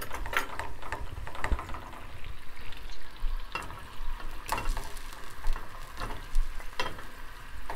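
Sugar, oil, water and cinnamon syrup boiling and sizzling in a frying pan while it is stirred with a wooden spoon. There are a few sharp knocks as chunks of ripe plantain are pushed off a plate into the pan with the spoon.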